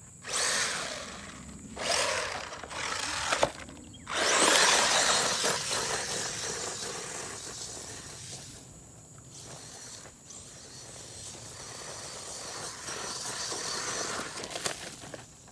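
Traxxas 1/16 Slash RC truck's electric motor whining in short throttle bursts, then a longer run about four seconds in that fades away and grows louder again as the truck drives off and comes back.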